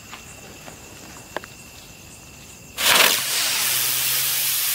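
Helicopter firework, a spinner with plastic rotor blades, catching light about three seconds in with a sudden loud hissing rush and flying up into the air, hissing steadily with a faint low hum beneath.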